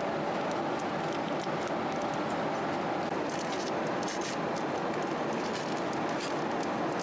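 Steady cabin noise inside a Boeing 787 airliner, an even rushing hum with a faint steady tone in it. A few light clicks and rustles come about three to six seconds in.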